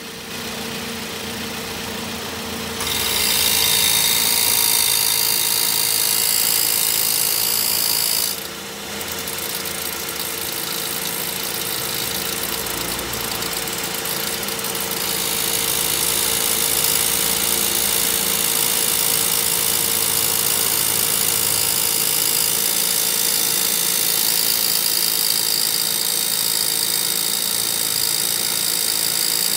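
Car engine idling with the A/C compressor engaged, giving a steady whine over a hiss; this is the abnormal compressor noise being demonstrated. The hiss grows louder about three seconds in, drops out briefly around eight seconds, and builds again from about fifteen seconds.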